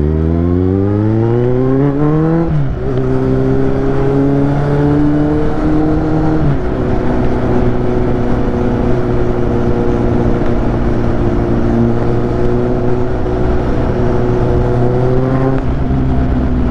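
Kawasaki Z800's inline-four engine accelerating, its note rising for about two and a half seconds before a gear change drops the pitch. It then runs at a steady cruising note, dipping slightly again about six seconds in.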